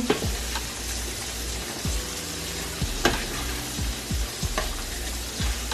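Chicken stew sizzling in a stainless steel skillet while a spoon stirs it, clicking and scraping against the pan every second or so.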